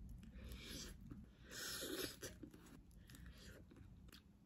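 Faint eating sounds: a person biting into and chewing a wafer ice cream cone, with a brief soft hiss about a second and a half in.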